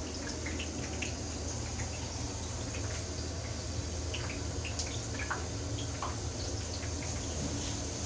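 Kitchen ambience: a steady low hum with scattered faint clicks over it.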